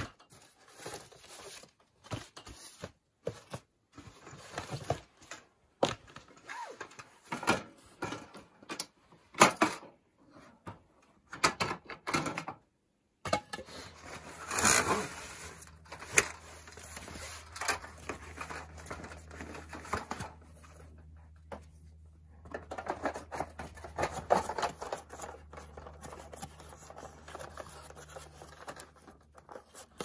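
Cardboard boxes being opened and torn, and LED tube lights and a light fixture being handled and set down, in a run of short clicks, rustles and knocks. A low steady hum runs beneath them from about halfway on.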